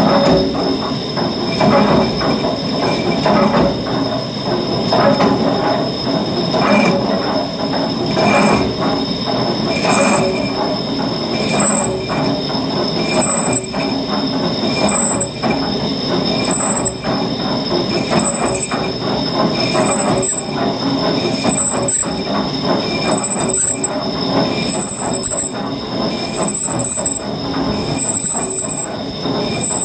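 Single-point lathe cutting tool turning the spinning steel hoist drum of a cable excavator true: a continuous metallic screech of the cut over running machinery, with a short squeal recurring about every second and a half.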